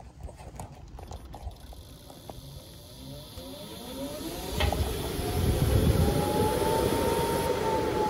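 ECM blower motor and its wheel in an HVAC air handler starting up: faint ticks and a slowly rising hum as it begins to turn, then, about five seconds in, a loud steady rush of moving air with a whine that rises a little and then eases.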